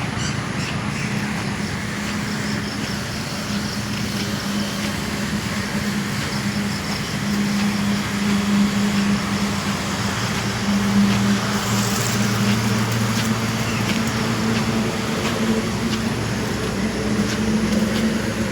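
A motor vehicle's engine running steadily, a low hum that grows a little louder about halfway through.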